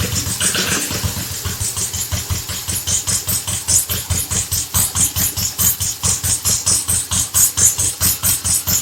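Ruggerini 550cc diesel engine running at a steady idle, an even chugging of about five or six beats a second.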